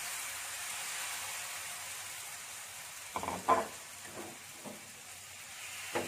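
Bánh xèo batter sizzling in a hot oiled frying pan with shrimp, bean sprouts and chives, a steady hiss that slowly fades as the batter sets. About three seconds in comes a short clatter of crockery, the loudest sound, followed by a few lighter knocks.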